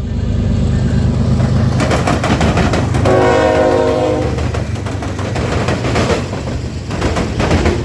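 A passing train: the locomotive's horn sounds one multi-note chord for about a second, about three seconds in, over a steady low engine rumble. Bursts of sharp wheel clatter on the rails come before the horn and again near the end.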